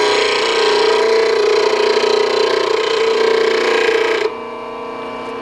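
Bench grinder running while a steel turning gouge held in a sharpening jig is ground against the wheel: a steady grinding noise over the motor's hum. A little over four seconds in the gouge comes off the wheel and the grinder keeps spinning, quieter.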